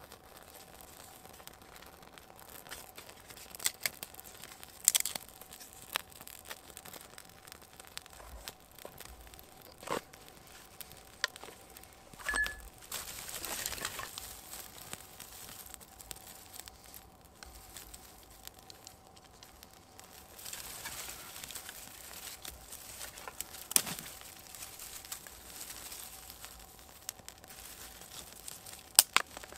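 A small fire being lit and fed with dry twigs and lichen: crinkling and rustling of kindling in the hands, a few sharp snaps and cracks, and a brief rushing hiss about halfway through as the flame takes.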